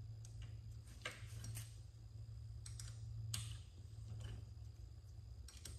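A handful of light, irregular metal clicks as an Allen wrench turns screws down into the table's metal mounting bracket, over a steady low hum.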